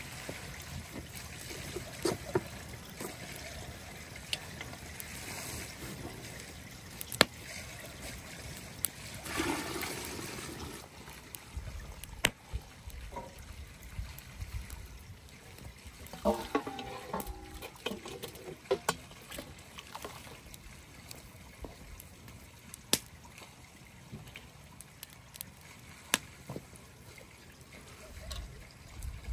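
A wood fire crackling with irregular sharp pops, and broth sloshing and trickling as a pan holding a boiled stuffed pig's stomach is tipped, around a third of the way in and again about halfway.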